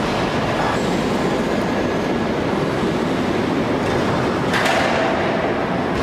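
Large industrial forging press and its shop machinery running with a loud, steady mechanical din. About four and a half seconds in there is a brief hissing surge with a steady tone in it.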